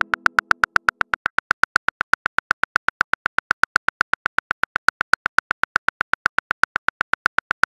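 Phone keyboard typing clicks, a rapid even run of about seven or eight taps a second. A musical chord fades out under the first second.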